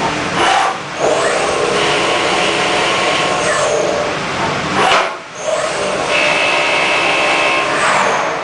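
Deckel Maho CNC milling machine cutting at high spindle speed: a loud, continuous cutting noise with a high tool whine. It dips briefly about a second in and again just after five seconds, then picks back up.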